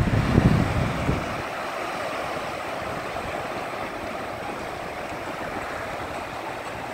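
Small surf waves breaking and washing in the shallows, a steady rush of water. Wind buffets the microphone in the first second or so.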